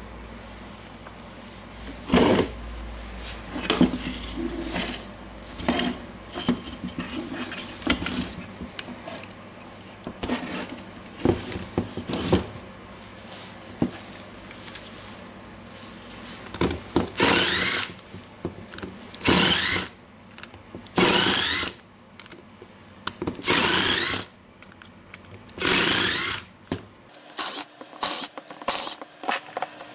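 Parts of a disassembled DeWalt DCH273 rotary hammer being handled on a wooden table: plastic and metal housing pieces clicking and knocking as they are moved and fitted. In the second half come five short, loud bursts of rough noise, each about a second long, a second or two apart.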